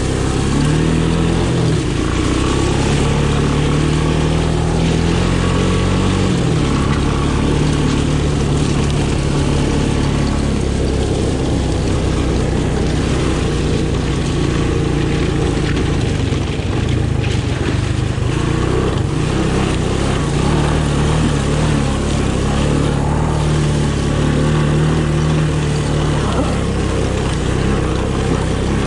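Honda ATC 200M three-wheeler's single-cylinder four-stroke engine running under way over rocks and gravel. Its note rises about a second in, drops back around six seconds in, and climbs again later with the throttle.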